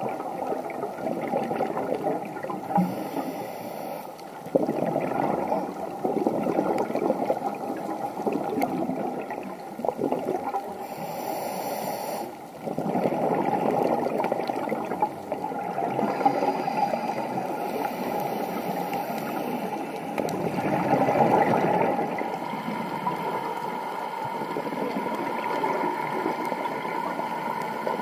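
Scuba regulator breathing heard underwater: gurgling exhaled bubbles that swell and fade every few seconds, with a short hissing inhale about three seconds in and again near eleven seconds.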